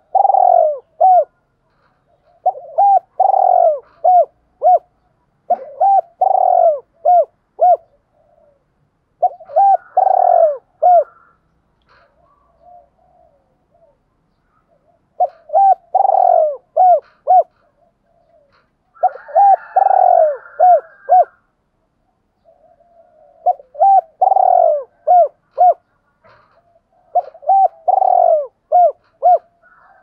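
Spotted dove cooing in repeated phrases: about eight calls, each a quick run of soft coos that ends in a few short separate notes, with a pause of a second or more between calls and a longer gap near the middle.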